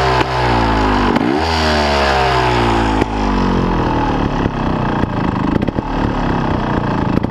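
Trials motorcycle engine blipped once about a second in, its pitch falling back over the following two seconds before it settles into an uneven idle.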